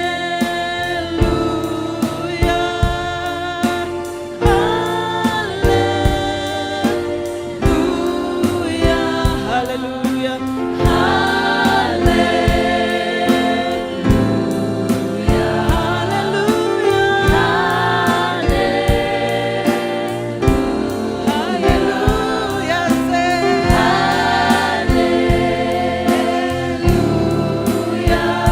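Gospel worship song: a choir singing together over a band, with a steady beat.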